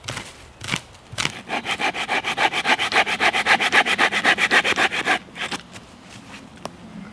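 A few scattered scrapes and knocks, then a fast, even run of rasping strokes on dry wood, about eight a second, which stops a little after five seconds in. This is a stick being worked by hand: cut or scraped.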